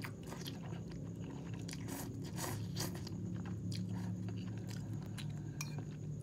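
A person slurping up instant ramen noodles from a fork and chewing them, with many short irregular wet smacks and slurps. A steady low hum runs underneath.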